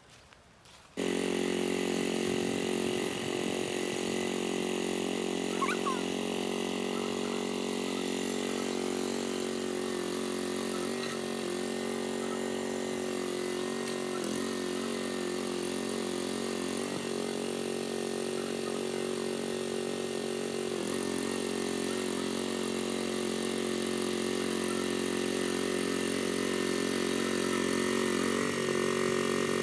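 A small engine starts being heard abruptly about a second in and runs at a steady speed, its pitch dipping briefly a few times.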